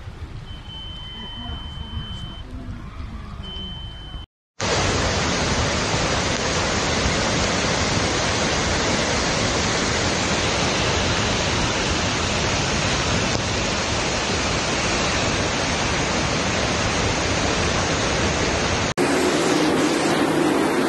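A swollen, fast-flowing flooded river rushing loudly and steadily. It starts after a short cut about four seconds in and lasts about fourteen seconds. Before it there is softer flood-street sound with a thin high tone twice, and near the end it cuts to a different steady noise.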